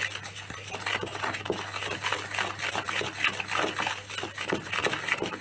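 Wooden stick stirring a stiff mix of grey grout and water in a small pot: a quick, uneven run of gritty scrapes against the pot's side and bottom.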